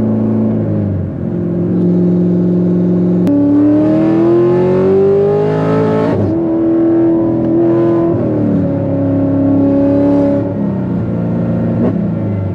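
Supercharged V8 of a C7 Corvette Z06 with a big custom-grind cam, heard inside the cabin under highway acceleration. The engine pitch climbs steadily for a few seconds, drops sharply about halfway in as it shifts up, then steps down again near the end.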